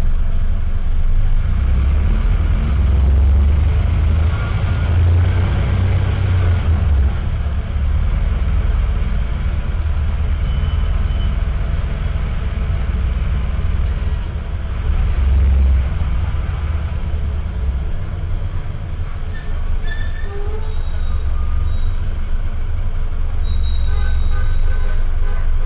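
Inside a Mercedes-Benz OH1618L-SB bus under way: its rear OM904LA diesel engine running with a steady low rumble that swells a few times, overlaid by the air-conditioning compressor and its pulley, which partly mask the engine.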